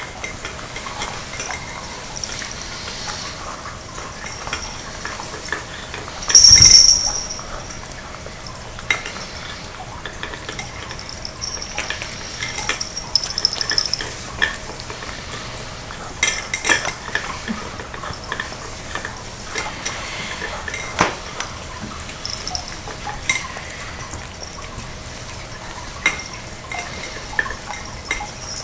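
Cats eating from food bowls close by: scattered small clicks and clinks of food and teeth against the bowls, with one loud brief bump about six seconds in.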